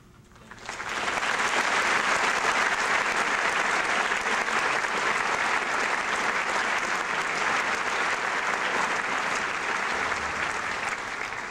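Audience applauding. The clapping swells in within the first second, holds steady, and starts to die away near the end.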